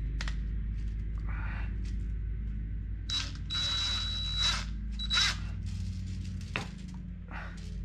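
DeWalt cordless drill run in short bursts with a high-pitched motor whine, the longest about a second long near the middle, as it bores into the clay of a sculpture to pin the figure's leg to the saddle.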